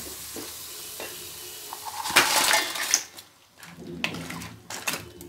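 Masala gravy sizzling gently in an aluminium pot, then raw crab pieces tipped in about two seconds in with a loud burst of clatter and sizzle, followed by a spatula scraping and clinking against the pot.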